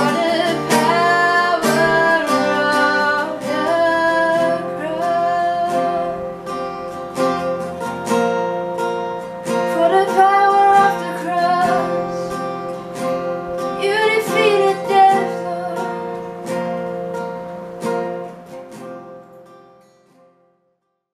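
A woman singing a worship song to her own strummed acoustic guitar, in sung phrases with strumming between them. The last chord rings out and fades to near silence shortly before the end.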